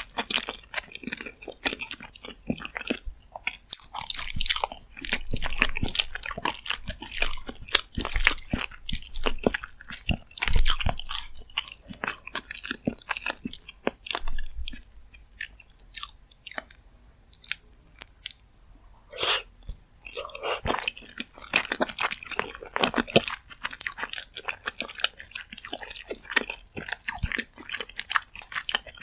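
Close-miked chewing and biting of rosé jjimdak, braised chicken with flat glass noodles, as mukbang eating sounds. Dense chewing clicks, busiest in the first half, a sparser stretch in the middle, then one louder single sound about two-thirds of the way through before the chewing picks up again.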